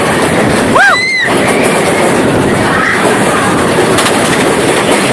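Roller coaster train rattling and rushing loudly along its track. About a second in, a rider lets out a short rising-and-falling whoop, with fainter cries later.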